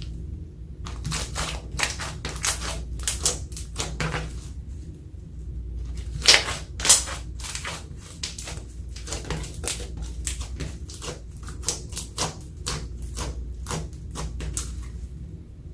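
Clear slime being squished and folded by hand, giving off a dense run of irregular sticky clicks and pops, with two louder pops about six and seven seconds in.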